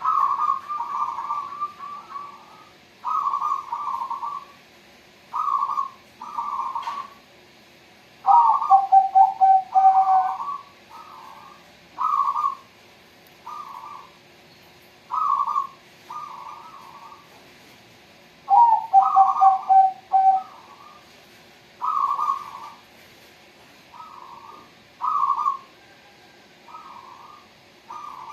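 Zebra doves (perkutut) cooing in repeated short, bubbly phrases every second or two. Twice a longer phrase ends in a drawn-out lower note.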